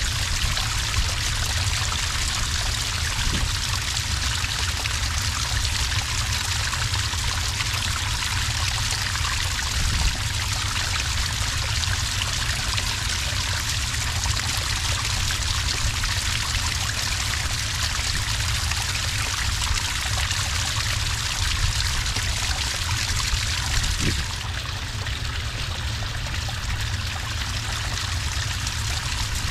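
A small cascade of water pouring and trickling steadily onto sand, in an even, continuous splash that grows a little softer and duller near the end.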